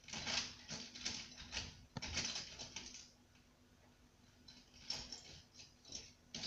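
Colouring pens clattering against each other as a hand rummages through a fabric pencil case: a quick run of rattles and clicks for the first three seconds, then a few more near the end.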